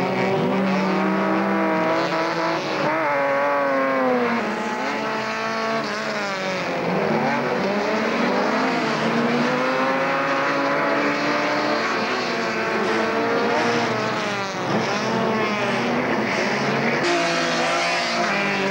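Rallycross car engines, a BMW 323i straight-six among them, racing at full throttle. Their pitch climbs under acceleration and drops at each gear change or lift, over and over, with several engines overlapping.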